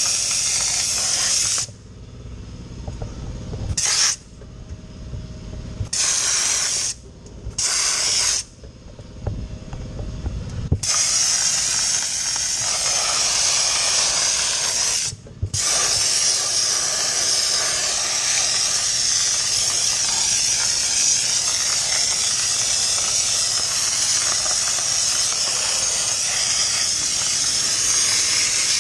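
Dry ice blasting gun hissing as it blasts pellets onto the car's front suspension: short stop-start blasts at first, then a steady blast from about a third of the way in with one brief pause. A low rumble shows through whenever the blast stops.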